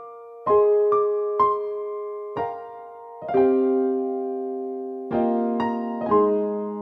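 Background music: slow electric piano playing single notes and chords, each struck and left to ring and fade.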